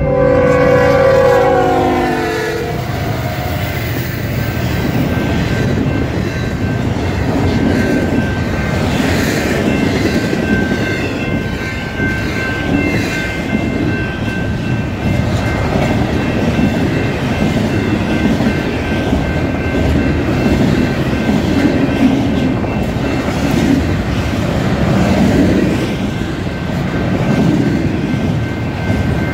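Union Pacific diesel locomotive's air horn sounding a chord that ends about two and a half seconds in, followed by the steady rumble and clatter of double-stack intermodal cars rolling past at track speed. A thin high tone rings over the rumble for a stretch in the middle.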